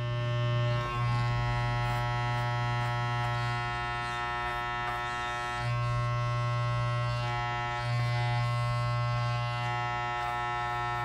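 Electric dog grooming clippers buzzing steadily as they trim the hair from between a Shih Tzu's paw pads. The hum swells and dips a few times as the blade works against the foot.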